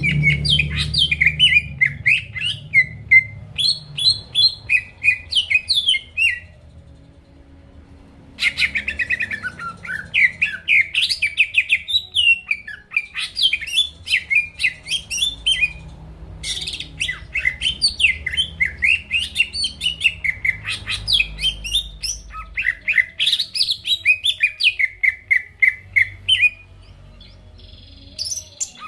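Cucak ijo (green leafbird) singing in full voice: rapid strings of varied whistled and chattering notes in long phrases. The song breaks off for about two seconds after six seconds, resumes, and stops again near the end.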